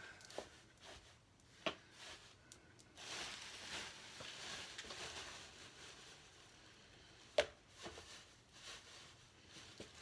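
Faint rustling and crinkling of shredded newspaper and a plastic bag as handfuls of paper are pulled out and packed into wooden nest boxes, with two sharp clicks, the louder one late on.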